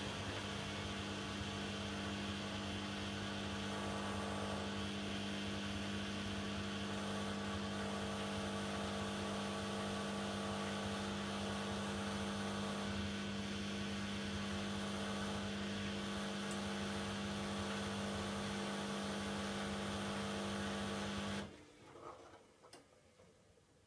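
Bosch Logixx 8 WAS28466 washing machine running with a steady hum near the end of its Super Quick 40 programme, then cutting off suddenly about 21 seconds in.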